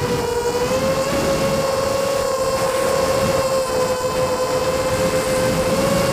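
FPV quadcopter's electric motors and propellers whining at a steady pitch that drifts slightly up and down with throttle, over the rush of air across the onboard camera's microphone.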